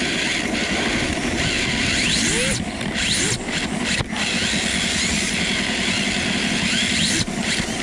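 RC drift car's brushless electric motor whining as it revs up and down several times, over a steady rush of tyre and drivetrain noise.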